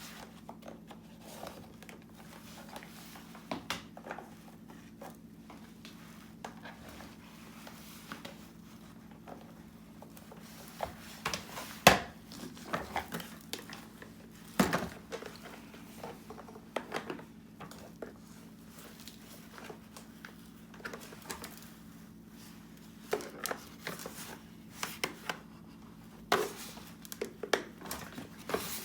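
Scattered clicks, taps and crinkly handling noise of a vacuum cleaner's plastic parts being worked on by hand, with a sharp knock about twelve seconds in and another about fifteen seconds in, over a faint steady hum.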